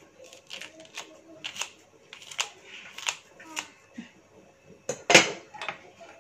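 Kitchen scissors snipping spring onion stalks, a run of short sharp snips roughly every half second, followed by one louder clack about five seconds in.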